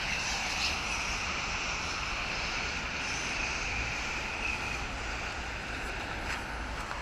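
Quadcopter camera drone's propellers whirring steadily, with a high whine that fades about four and a half seconds in.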